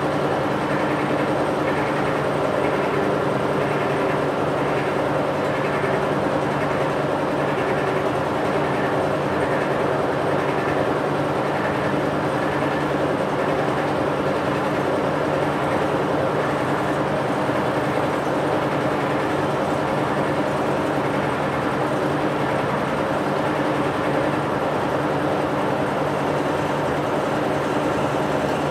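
Bench-mounted machine jigsaw (scroll saw) running steadily with a constant hum, its blade reciprocating as a small piece of wood is fed through it and cut.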